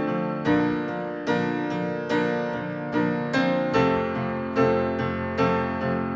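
Instrumental piano music: evenly spaced piano chords, each struck and left to ring and fade, about one to two a second, with no singing. A lower bass part grows stronger about four seconds in.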